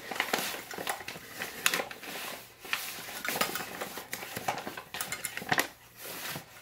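Metal measuring cups clinking and scraping against a stainless steel mixing bowl as flour is scooped and tipped in, a scatter of sharp clinks, some briefly ringing.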